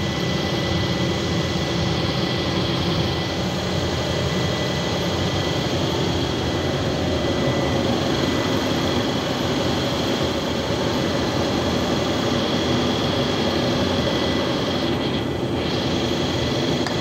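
Steady industrial machinery noise: a constant drone with several held tones running through it, unchanging throughout.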